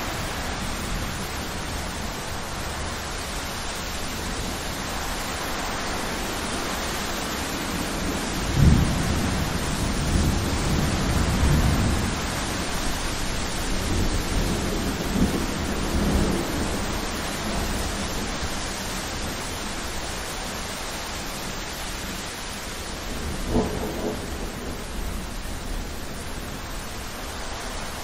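Thunderstorm: steady rain with rolling thunder. A loud, sudden clap of thunder comes about a third of the way in and rumbles on for several seconds, with more rumbling after it, and a shorter, sharper thunderclap comes near the end.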